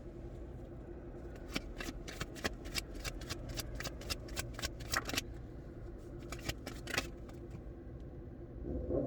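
A deck of tarot cards being shuffled by hand: a quick run of card snaps lasting a few seconds, a pause, then a shorter run.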